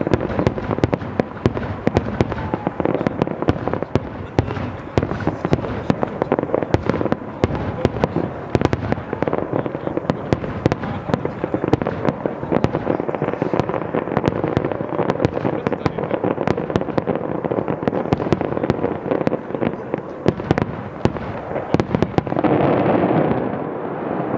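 Fireworks display: a dense, unbroken barrage of bangs and crackling shells, swelling louder near the end.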